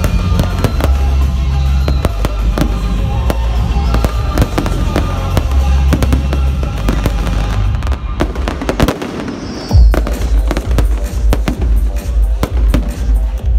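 Fireworks display: aerial shells bursting in a dense run of bangs and crackles, over music with a heavy bass. After a short lull, a sharp, loud bang comes about ten seconds in.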